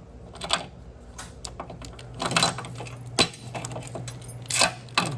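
Steady low hum of the diesel pickup's electric fuel pump running with the key on, under a handful of sharp metallic clinks and knocks at irregular intervals.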